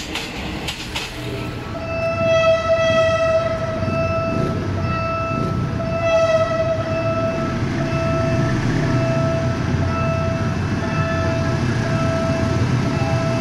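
Train horn sounding a single steady note in a long string of short blasts of uneven length, with longer blasts about two and six seconds in, over a low rumble.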